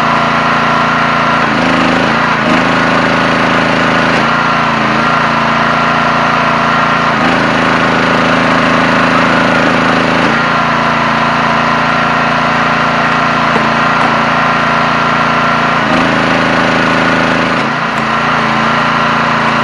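Engine and hydraulic pump of a 37-ton log splitter running steadily and loud. Its note shifts several times as the ram loads up splitting through ash rounds and then eases off.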